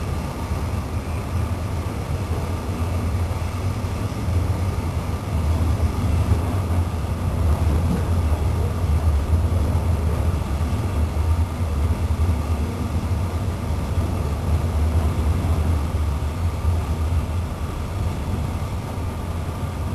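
Moving train heard from inside the carriage: a steady low rumble of the wheels running on the rails.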